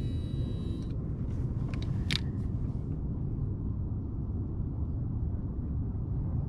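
Steady low rumble of wind buffeting the camera microphone. A baitcasting reel's spool whine from the cast fades out about a second in, and a few sharp clicks from the reel as it is handled follow, the loudest about two seconds in.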